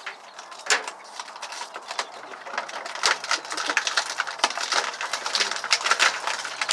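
Plastic toy packaging being handled and pulled apart: quick, irregular clicks and crackles that grow denser about two seconds in.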